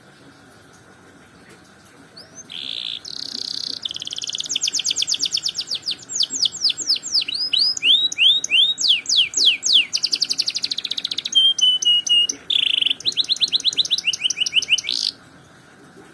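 Domestic canary singing a long song of rapid trills and quick downward-sweeping notes. It starts about two seconds in and breaks off suddenly near the end.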